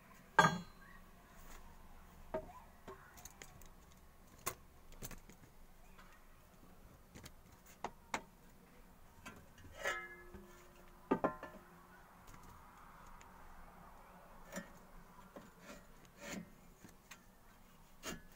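Scattered knocks, clatters and rubbing as a steel shovel blade and a wooden handle are handled and fitted together on a workbench. The loudest knock comes about half a second in, and a short metallic ringing note sounds near the middle.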